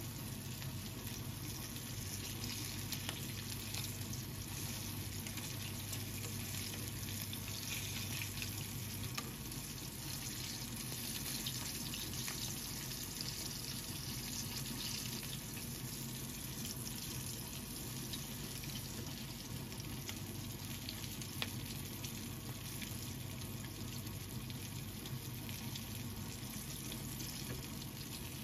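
Flour-coated chicken drumsticks (karaage) shallow-frying in hot oil in a frying pan: a steady bubbling sizzle, with a few faint clicks and pops as metal tongs turn the pieces.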